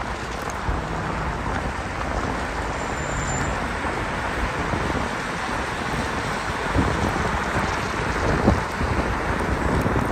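Wind buffeting the microphone of a rider on a Dualtron Victor electric scooter moving at speed in traffic, a steady dense rumble and rush, with road noise under it.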